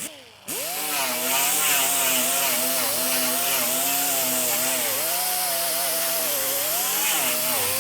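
Electric angle grinder switched on and spinning up about half a second in, then running steadily against the sheet steel of a Model A trunk lid, its whine wavering slightly as it is pressed on. The disc is not cutting at all.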